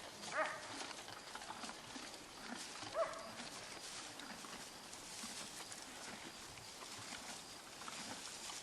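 Two short animal calls, about two and a half seconds apart, over faint scattered clicks and rustling.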